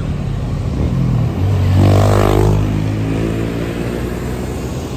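Tour bus engine revving as it accelerates; the engine sound swells to its loudest about two seconds in, then eases off to a steady running rumble.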